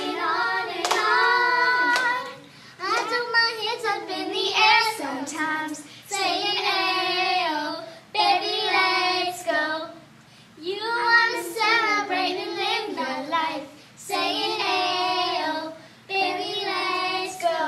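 Young voices singing an upbeat pop song together in phrases of about two seconds with short breaks between, with a few hand claps.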